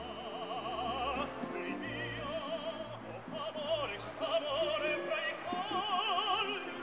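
Background music: operatic singing with a wide, wavering vibrato over orchestral accompaniment.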